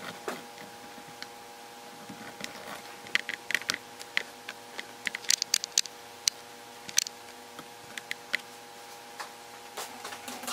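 A steady low hum with scattered light clicks and taps, several coming in quick clusters in the middle.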